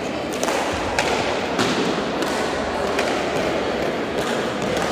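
Bare-hand pelota rally: the hard pelota ball striking the players' hands, the front wall and the floor of a large indoor court. It comes as a series of about six sharp knocks, roughly one every half-second to second, over steady background noise.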